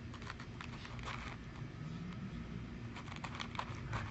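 A cat crunching food from a bowl: quick, irregular crunches, a few about a second in and a thick run of them near the end.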